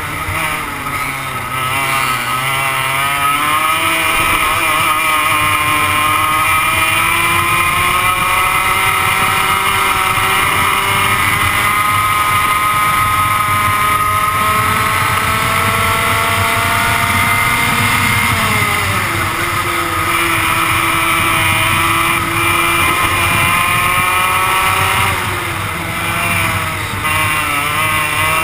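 100cc two-stroke go-kart engine at racing speed, heard onboard. Its pitch climbs out of a low point at the start, holds high along the straight, drops about two-thirds of the way in and dips again near the end before climbing, as the driver lifts off and accelerates through the corners.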